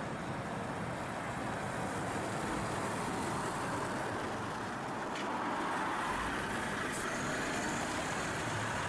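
Diesel engine and tyres of a Volvo tractor unit without a trailer driving past at low speed, growing a little louder as it passes close by about six seconds in.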